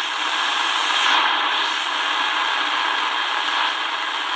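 Tecsun DR-920C shortwave radio's speaker giving a steady hiss of static as the analog dial is tuned down the 31-metre band between stations.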